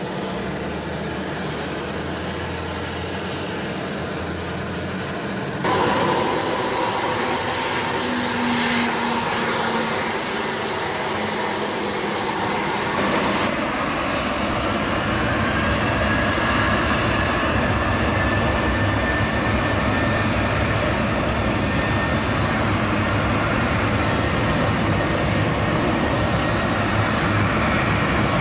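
Boeing 737 jet engines at high thrust on a wet runway: a steady dense noise with a faint whine that rises slowly. It is preceded by two shorter, quieter clips of jet airliner engine noise, with cuts about 6 and 13 seconds in.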